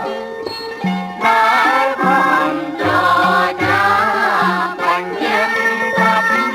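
Background music: a Khmer song, a wavering melody over a repeating bass line.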